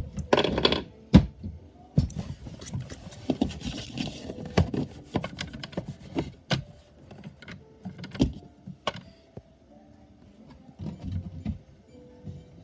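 Irregular knocks, clunks and clicks of things being handled and set down close to the microphone, with a short hiss about two seconds in that lasts a couple of seconds.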